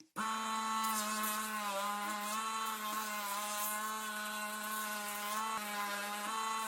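A small electric power tool running steadily, its motor hum wavering slightly in pitch as it works.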